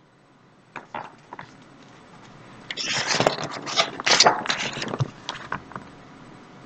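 Paper pages of a picture book being turned by hand: a few light taps, then rustling and sliding of paper, loudest in the middle.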